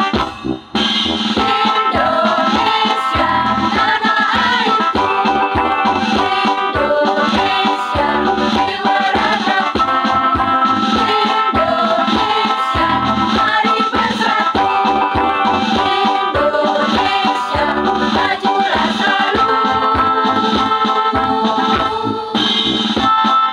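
Women's choir singing in Indonesian over an electronic keyboard accompaniment with a drum beat.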